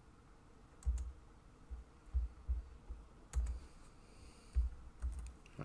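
Irregular soft thumps and light clicks of hands handling things on a tabletop, about eight over several seconds, with a faint brief rustle about two thirds through.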